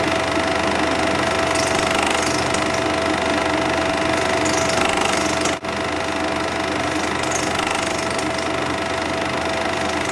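Cine film projector running: a steady mechanical whir and clatter with a constant hum, briefly dropping out about halfway through.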